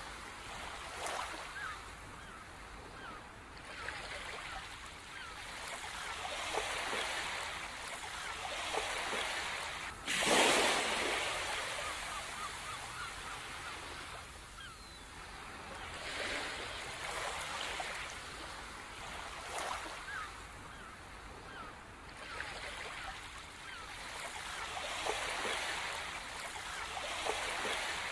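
Ocean surf washing onto a shore, swelling and receding every few seconds, with one sharper, louder wave breaking about ten seconds in.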